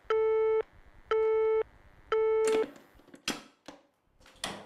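Telephone busy (disconnect) tone from a corded handset: three beeps of about half a second each, once a second, the sign that the other party has hung up. The beeps stop and a few sharp clicks and knocks follow as the handset is put down.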